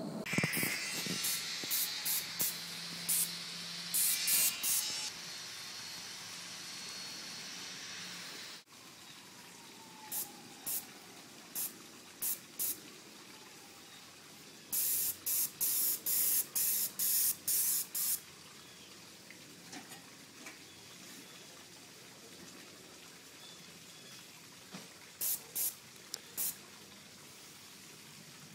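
Paint spray gun triggered in short bursts, each a brief high hiss, coming in clusters, with a quick run of about eight bursts in the middle.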